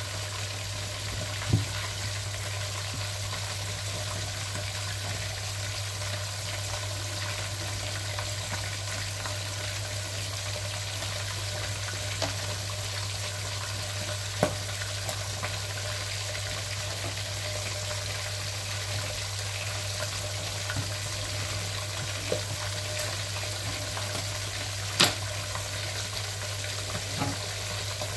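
Cod frying in a hot pan, a steady sizzle with a few sharp clicks: one near the start, one about halfway and one near the end.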